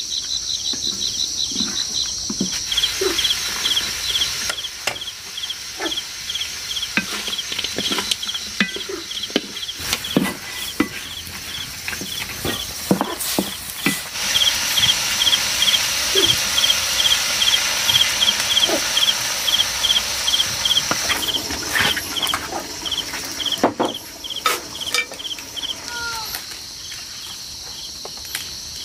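Insects chirping in a steady pulsing rhythm, about five pulses a second, over a high continuous insect drone, with scattered clicks and knocks.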